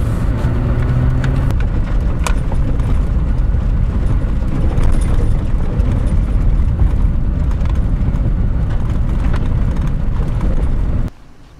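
Toyota 4Runner driving, a steady low rumble of engine and road noise that cuts off suddenly near the end.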